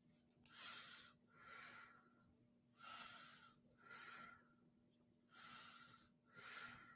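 Faint breathing of a person close to the microphone: about three slow breaths, each an in-and-out pair of half-second puffs.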